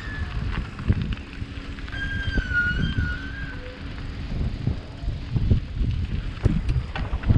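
Bicycle being ridden, heard as wind buffeting the action-camera microphone and an uneven rumble with small knocks from the bike over rough ground. A brief wavering high squeal comes in about two seconds in and lasts about a second and a half.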